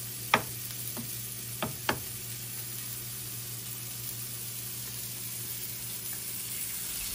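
Olive oil sizzling steadily in a cast-iron skillet with a searing steak. A sharp knock about a third of a second in and three lighter knocks over the next two seconds come from eggs being cracked for the pan. The sizzling grows a little louder near the end.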